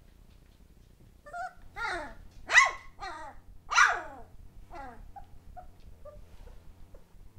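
Three-week-old puppies yapping: about half a dozen short, high calls that fall in pitch between one and five seconds in, the loudest two about two and a half and four seconds in, followed by a few faint squeaks.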